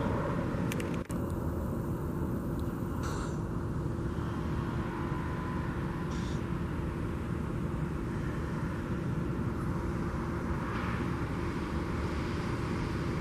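Steady outdoor vehicle rumble with a constant low hum underneath.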